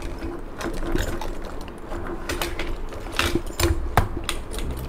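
Irregular clicks, clinks and knocks of small hard objects being handled and rummaged through, with a few sharper knocks near the end.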